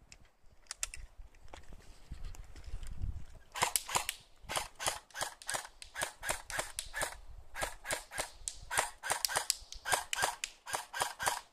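Cyma AKM electric airsoft rifle firing a long string of quick single shots, about four a second, each a sharp snapping pop, with a couple of brief pauses. The shots start about three and a half seconds in.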